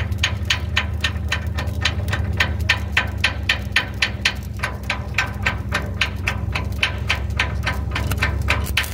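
A machine running nearby: a steady low hum with an even knocking tick about four times a second.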